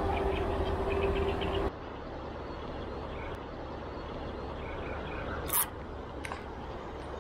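A steady drone with one held tone and a low rumble cuts off abruptly about a second and a half in, leaving quiet outdoor riverside background with faint bird chirps. A sharp knock near the end, then a smaller one, as a hand touches the action camera.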